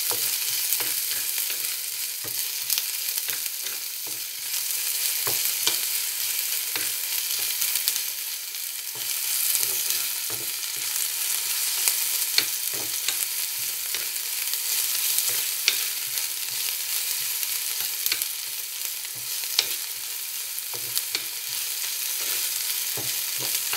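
Chopped onion sizzling steadily in hot oil in a frying pan, stirred with a metal utensil that scrapes and clicks against the pan now and then.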